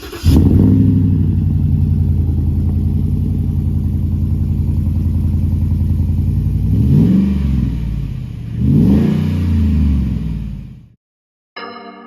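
Engine idling steadily, then revved up and back down twice before cutting off suddenly.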